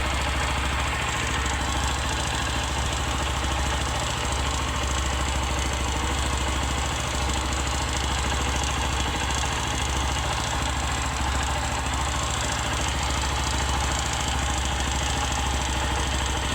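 A 150 cc single-cylinder motorcycle engine running steadily at idle. It carries the light piston-type noise that the mechanic hears, a sign he takes for a worn piston.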